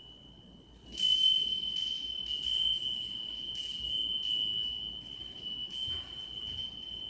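A high, pure ringing tone from a meditation chime, faint at first, then much louder from about a second in and holding on with a slight waver, with a fainter higher overtone above it. It is sounded to close final relaxation.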